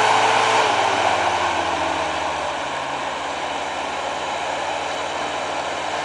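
Toyota pickup's engine running under load as the lifted truck crawls through deep snow, its revs falling over the first two seconds and then holding at a steady low speed.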